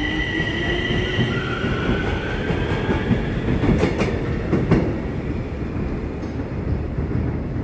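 Bombardier metro train pulling through the station: a low rumble of wheels on rail with the traction motors' whine rising in pitch as the train gathers speed, and a few sharp wheel clacks over rail joints about four seconds in.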